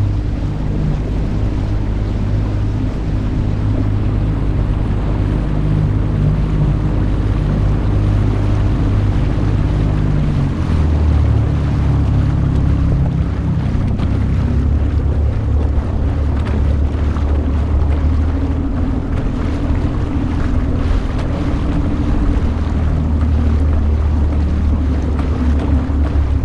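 Small outboard motor pushing a Gheenoe across open water, running steadily under a haze of wind on the microphone and water rushing past the hull. Its note drops lower about ten seconds in.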